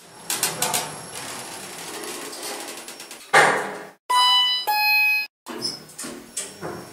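Intro sound effects: rattling, clattering noise and a loud whoosh, then, about four seconds in, a two-note chime like a lift's arrival gong, high then lower, followed by more clatter.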